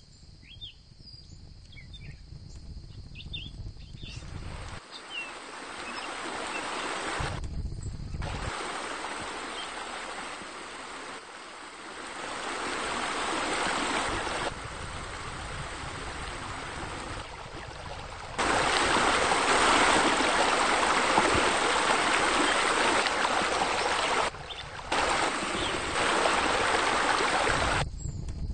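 Rushing, splashing water from pool fountains, deck jets and spillways, a steady noisy wash without a beat or tune. Its loudness jumps abruptly several times and it is loudest in the last third, with a few faint chirps in the first seconds.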